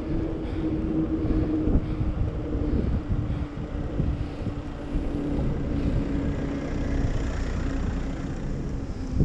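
Wind rushing over the microphone and tyre rumble from a mountain bike rolling on a tarmac path, with a steady hum that fades toward the end.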